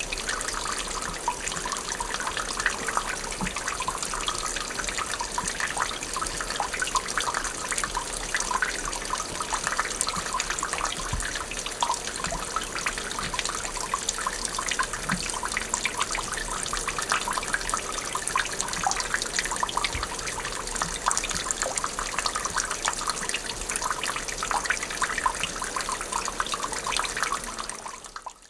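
Water dripping and trickling: a dense, continuous patter of small drops and splashes at a steady level. It stops abruptly near the end.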